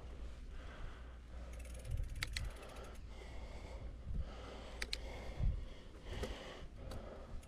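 Bicycle rear-hub freewheel ratchet clicking in quick ticks in short spells as the rider stops pedalling and coasts. Low wind rumble on the microphone runs underneath.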